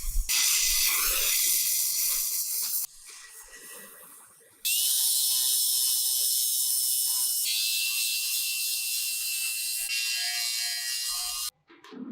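Electric power tool working metal parts: a steady hiss with a high whine, in several cuts that start and stop abruptly and change level in steps.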